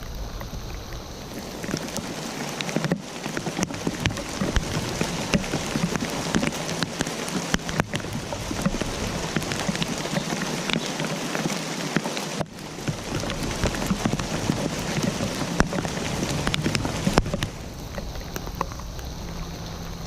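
Steady rain falling, with many separate drop hits standing out from a dense wash of rainfall. It dips briefly a few times.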